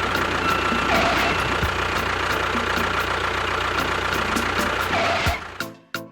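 Vehicle engine running steadily with a regular fast ticking, fading out about five and a half seconds in; a few short separate notes follow near the end.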